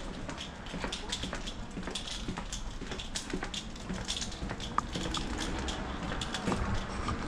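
Footsteps walking on rough pavement, a step or two every second, over a steady low rumble.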